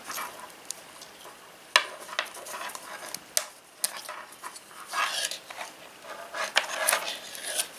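Nylon paracord rustling and sliding as a braided paracord bracelet is unravelled by hand, with scattered light clicks and taps, one sharper click about two seconds in.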